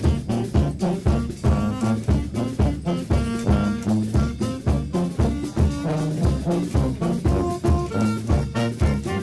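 Swing-style brass band music, trombone and trumpet over a steady beat of about two pulses a second.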